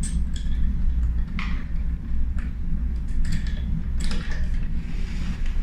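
A few light clicks and scrapes of metal door-lock hardware being handled, as the exterior handle's connecting screws are fitted through the latch. A steady low hum underlies them.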